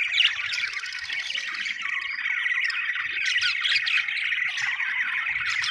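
Several budgerigars chirping and chattering together in a dense, continuous warble of quick overlapping calls, with the odd squawk.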